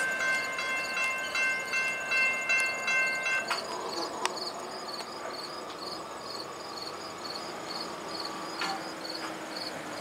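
Level-crossing warning bell ringing steadily, then stopping abruptly a few seconds in, as the passing GO train's rumble fades away. Insects keep chirping in an even, high-pitched rhythm.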